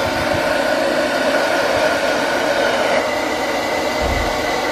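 Handheld hair dryer running steadily, blowing into a water-soaked leather handbag: an even rush of air with a motor whine in it that shifts slightly higher about halfway through.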